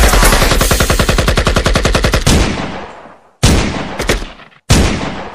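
Gunfire sound effect: a rapid burst of automatic fire, more than ten shots a second, that dies away a little over two seconds in. It is followed by single loud shots about every second and a quarter, each trailing off in a long echo.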